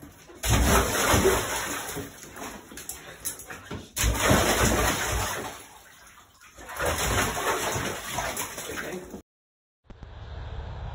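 Bath water sloshing and splashing in a filled bathtub as a dog wades and paws about in it, in three bouts of splashing with short lulls between. It cuts off abruptly about nine seconds in.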